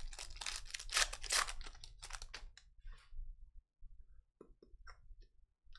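Foil wrapper of a Panini Recon basketball card pack being torn open, a rapid run of crinkling crackles for about two and a half seconds, then a few soft clicks as the cards are slid out and handled.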